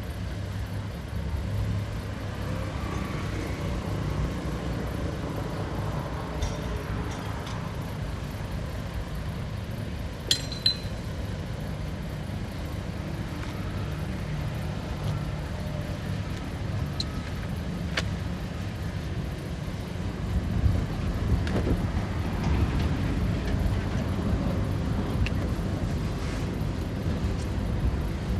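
Heavy earthmoving machinery running with a steady low engine rumble, with a few sharp metallic clinks around the middle. From about two-thirds of the way in it grows louder and rougher, with knocks.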